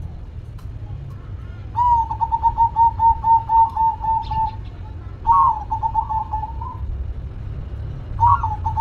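Zebra dove (perkutut) giving three bouts of rapid staccato coos, about five notes a second. The last two bouts open with a higher note.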